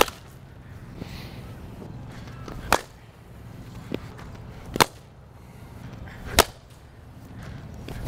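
Sharp cracks of a cricket ball struck by a repaired cricket bat with a glued crack across the blade, one at the start and one at the end, with several more sharp cracks in between, about one every two seconds.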